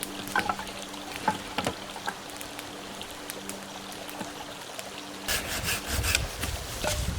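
Wood being sawn by hand: a few scattered clicks and knocks, then a quick run of rough saw strokes starting about five seconds in.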